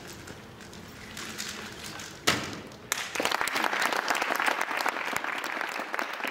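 A sharp slap about two seconds in as the solver's hands stop a Speed Stacks competition timer at the end of a Rubik's Cube solve. Audience applause follows and continues.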